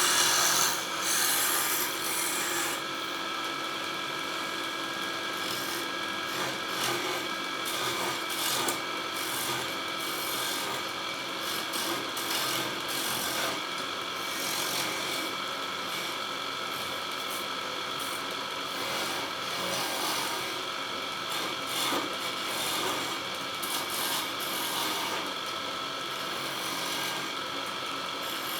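Wood lathe running with a steady motor hum while a hand-held turning tool scrapes and cuts the spinning wood, a rasping hiss. The cutting is louder and hissier for the first two or three seconds, then settles to an even scrape.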